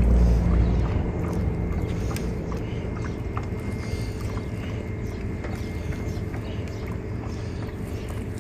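A fillet knife cuts the rib bones out of a northern pike fillet, with faint scattered clicks, over a steady engine hum. A louder low rumble fades away in the first second.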